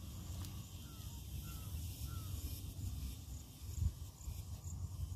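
Faint outdoor hillside ambience: a steady low rumble with three short, faint falling bird calls between one and two and a half seconds in, and a soft thump near four seconds.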